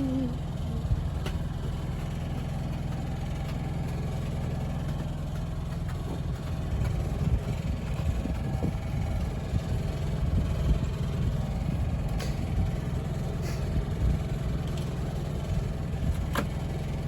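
Steady low drone of a running motor, even throughout, with a few faint sharp clicks near the end.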